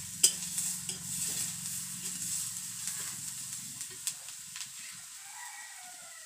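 Onion and ground spices sizzling in hot oil in a kadai, with a metal spatula scraping and knocking against the pan, the sharpest knock just after the start and a few lighter ones over the next few seconds. The sizzle grows quieter toward the end.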